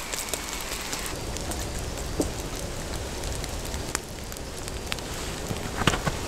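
Oil, salt and charred potato peels sizzling in a carbon-steel pan over a wood-fired camp stove, a steady hiss with scattered crackles from the fire. The pan is being seasoned, burning in its first patina layer.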